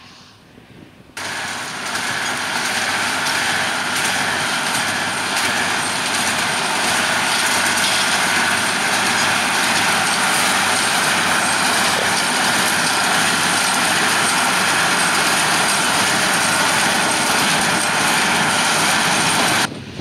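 Massey Ferguson 6190 tractor pulling a Welger AP830 small square baler through straw: a steady, loud mix of engine and baler machinery noise. It cuts in sharply about a second in and stops abruptly just before the end.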